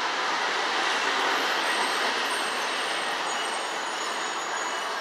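Steady street traffic noise, an even rush of passing vehicles with no single event standing out.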